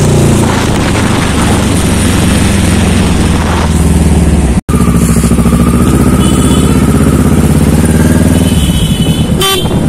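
Sport motorcycle engine running under way with a steady note, easing off near the end. The sound cuts out for an instant a little before halfway.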